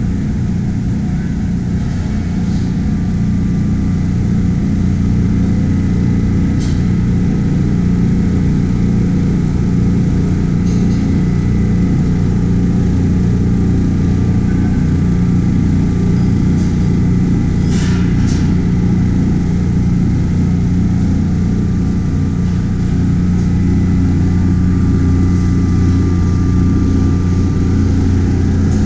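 Electric impeller-type grain aspirator running steadily: an even, loud hum of its motor and air blower with a faint steady high whine over it.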